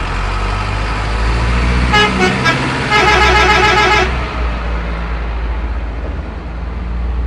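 Dump truck engine running with a steady low rumble while its horn sounds three quick short toots, then one longer honk of about a second.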